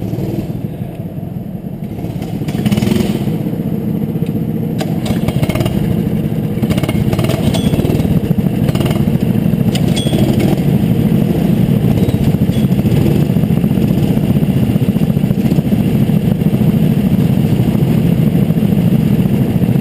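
Go-kart engine running hard as the kart pulls away. The engine gets louder a couple of seconds in as it accelerates, then holds a steady drone, with occasional knocks and rattles from the kart.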